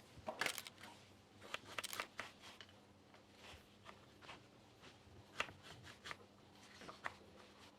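Knife cutting firm green tomatoes on a cutting board: faint, irregular slices and taps of the blade.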